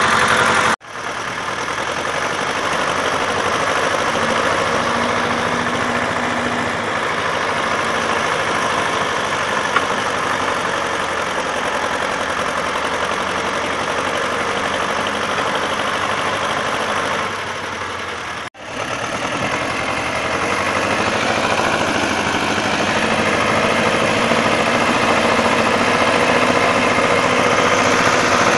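Vladimirets T-25 tractor's two-cylinder air-cooled diesel engine running steadily. The sound cuts out abruptly for an instant twice, about a second in and about two-thirds of the way through.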